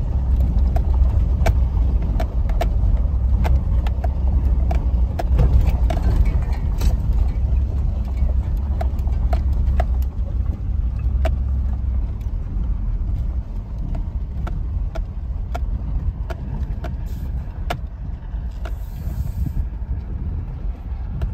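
A truck driving slowly over rough ground: a low engine and road rumble with frequent knocks and rattles. The rumble eases about halfway through as the truck slows down.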